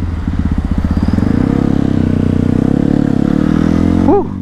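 Yamaha WR155 single-cylinder engine, bored up to about 181 cc, heard from the bike as it pulls away and accelerates, its note climbing steadily in pitch. A brief rising-and-falling tone sounds near the end.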